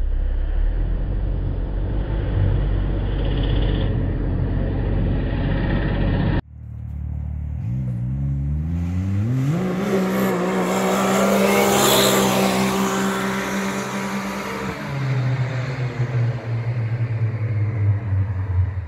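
A Can-Am Maverick X3's turbocharged three-cylinder engine with an Evolution Powersports exhaust: first a low rumble, then, after a cut, the engine revs up hard, its pitch rising quickly and then holding steady as the machine accelerates, loudest about halfway through.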